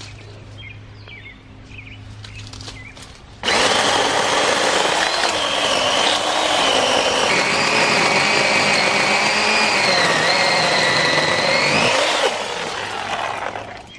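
The 1982 Craftsman electric chainsaw's universal motor starts suddenly about three and a half seconds in and runs loud, cutting into a woody bush stem, its high whine wavering and dipping under load. It shuts off a couple of seconds before the end and winds down.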